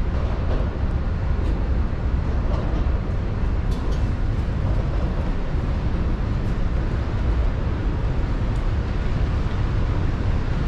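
Steady low rumble and hum of a Keisei Skyliner train standing at a station platform, with a few faint clicks.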